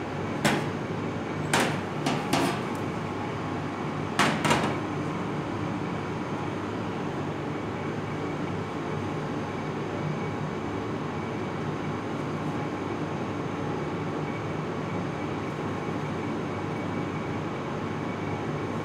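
Dishes and food knocking on a stainless steel kitchen counter during plating: a handful of sharp knocks and clatters in the first five seconds, some in quick pairs, over a steady kitchen hum.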